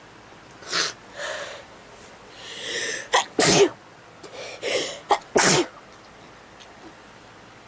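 A person sneezing over and over in a fit. A couple of smaller bursts come first, then two loud, full sneezes about two seconds apart, each preceded by a building breath.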